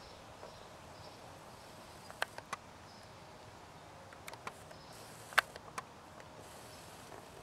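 Quiet outdoor background with about six short, sharp clicks scattered through the middle, the loudest about five seconds in.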